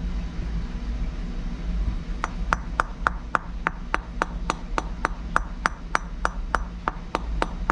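Rapid, even metal-on-metal taps, about four a second and each with a short ring, starting about two seconds in: a hammer tapping at a two-stroke cylinder's exhaust valve, which is seized by heavy carbon buildup, to drive it out.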